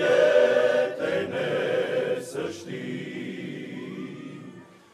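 Men's choir singing a cappella: full chords for the first couple of seconds, then a softer held chord that dies away toward the end.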